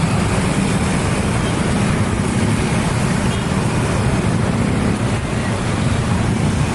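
Loud, steady low rumble of passing vehicles, without letup.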